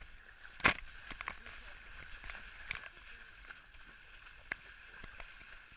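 Shallow sea water splashing against a camera held at the water's surface, with sharp knocks and splashes on the camera, the loudest about half a second in and smaller ones near three and four and a half seconds.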